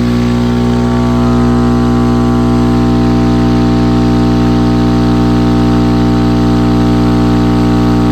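Crossfire XS V4 15-inch dual-1-ohm subwoofer driven directly by household mains AC through one voice coil, giving a loud, steady mains hum with many overtones. This is the wall-socket stunt, drawing so much current that the extension cord heats up and the breaker trips.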